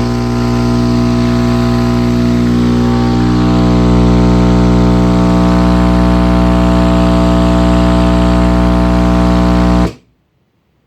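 Crossfire XS V4 15-inch car subwoofer driven directly by wall-socket AC, giving out a loud, steady mains hum-buzz at one fixed pitch with many overtones. It gets slightly louder a few seconds in and cuts off suddenly after about ten seconds.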